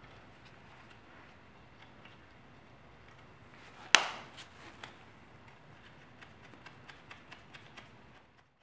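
Metal parts being handled on an engine cylinder head: a single sharp metallic clack about four seconds in, then a run of light, even ticks, about four a second, near the end, as the cam-cap-and-socket valve spring compressor is fitted and its nuts started.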